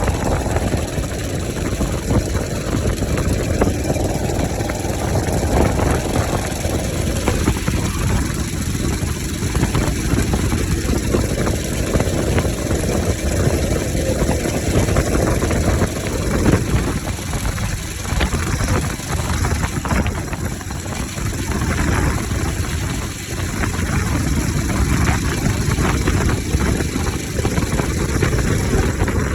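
Bajaj Pulsar RS 200's single-cylinder engine running with its air filter removed, its note rising and falling back several times as it is revved.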